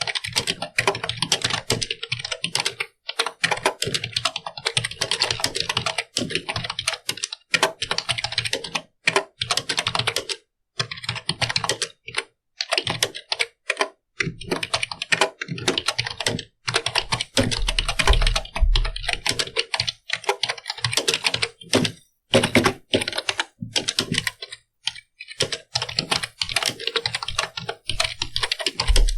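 Computer keyboard being typed on: fast runs of key clicks broken by short pauses, with a few deeper thumps a little past the middle.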